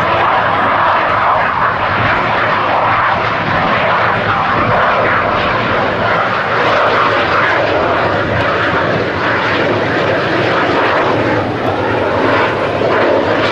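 Loud, steady jet noise from a CF-18 Hornet's twin General Electric F404 turbofan engines as the fighter flies overhead in a display.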